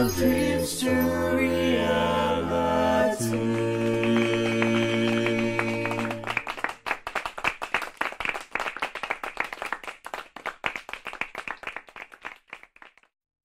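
Closing music of long held chords with singing stops about six seconds in. A group of people clapping takes over and fades out near the end.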